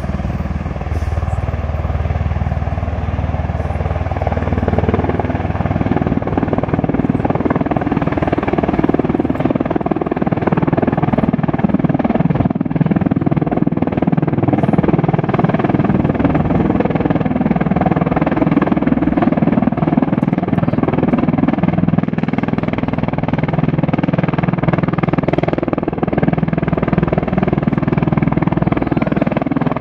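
V-22 Osprey tiltrotor in helicopter mode, nacelles up, its two large proprotors and turboshaft engines making a steady loud rotor drone as it descends to land. The sound grows a little louder after about five seconds.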